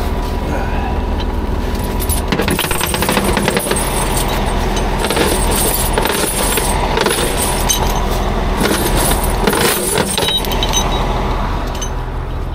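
Metal rigging gear rattling and clanking as it is handled in a truck's storage box, a dense run of clinks from about two seconds in until near the end. Under it, a tow truck's engine idles steadily.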